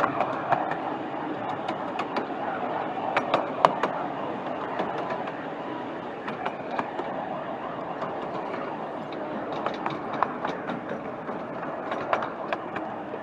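Miniature railway passenger car running along the track: a steady rumble of wheels on rail, broken by many irregular sharp clicks and knocks, the loudest about three and a half seconds in.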